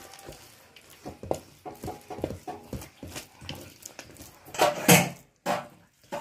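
Roasted peanut halves and jaggery syrup being stirred and scraped by hand in a steel bowl, making a run of light clicks and scrapes against the metal. About five seconds in, a loud, short pitched sound rises over the mixing.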